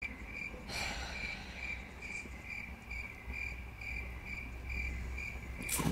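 Cricket chirping: one high chirp repeated steadily about two and a half times a second, over a low hum.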